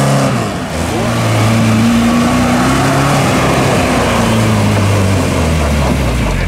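Car engine revving under load while driving off-road. Its pitch holds and then steps up and down every second or two.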